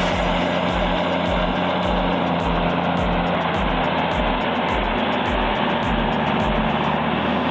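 Heavy engine noise from a working bulldozer, steady throughout, under background music with a steady beat.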